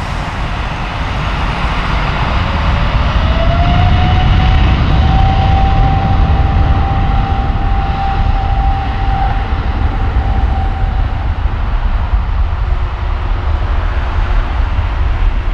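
Airbus A330neo's Rolls-Royce Trent 7000 turbofans running up to takeoff thrust. A deep rumble builds over the first few seconds, and a whine rises about three seconds in and holds steady before fading.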